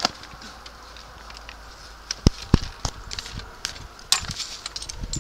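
Scattered knocks, clicks and scuffs of hikers climbing over rock and branches, with a handful of sharp knocks between about two and four seconds in.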